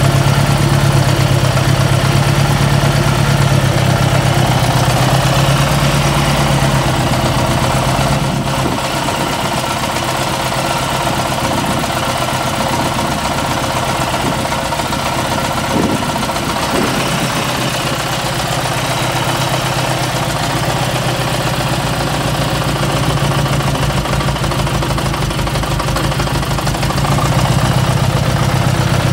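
Saab 9-3's four-cylinder Ecopower turbo engine idling steadily, heard up close in the open engine bay. This is the running sound the owner puts forward as an engine problem.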